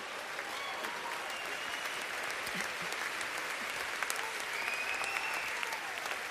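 Large audience applauding and laughing: steady, dense clapping with a few voices rising over it.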